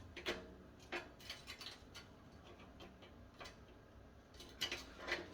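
Scattered light metallic clicks and taps as a camp wood stove's steel legs and cotter-pin clips are handled and fitted together, a few more in a cluster near the end.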